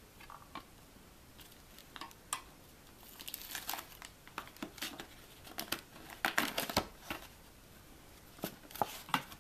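Thin sheet-steel lid of an ammo spam can being bent and folded back by hand along its cut edge: irregular crinkling and sharp clicks, sparse at first and busiest in the middle.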